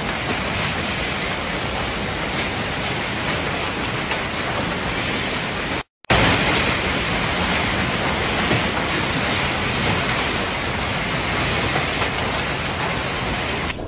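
Heavy hailstorm: a dense, steady din of hail and rain pelting down. It cuts out for a moment about six seconds in, then resumes just as loud.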